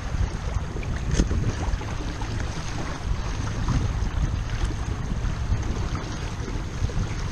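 Wind buffeting the microphone over water rushing and splashing past the hull of a WindRider 16 trimaran under sail, with one sharper hit about a second in.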